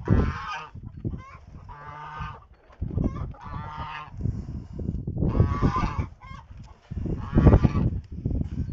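Domestic white goose honking repeatedly, about five loud, harsh calls a second or two apart.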